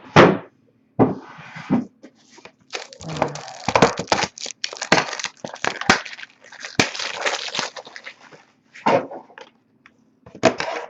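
Handling noise from trading cards and their plastic packaging being unwrapped and sorted: irregular crinkling and crackling, densest in the middle, with a few sharp clicks.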